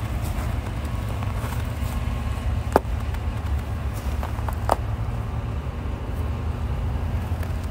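Chevrolet Silverado pickup's engine idling steadily after a cold remote start, a constant low rumble. Two short sharp clicks come through about three and five seconds in.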